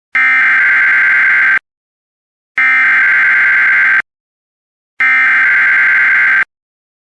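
Emergency Alert System SAME header data tones: three identical harsh buzzing bursts, each about a second and a half long, with about a second of silence between them. This is the digital header that opens an EAS alert, here for a severe thunderstorm watch.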